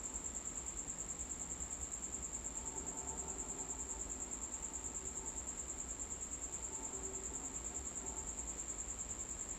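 A cricket trilling steadily: one high, unbroken chirring that pulses rapidly and evenly, over a faint low background rumble.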